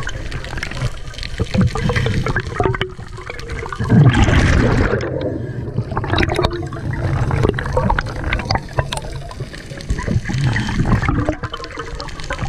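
Scuba diver's exhaled bubbles gurgling and rushing underwater, heard through the camera housing. There is a loud burst of bubbles about four seconds in, and small bubbling clicks throughout.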